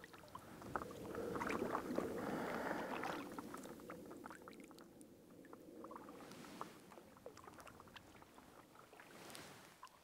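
A paddle blade stroking through lake water: a swishing, splashing pull about a second in, then quieter drips and lapping, and another short swish near the end.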